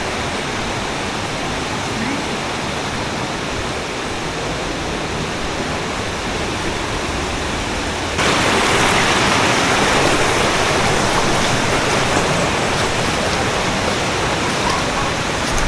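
Rushing water of a jungle stream: a steady, even hiss that abruptly becomes louder and brighter about eight seconds in.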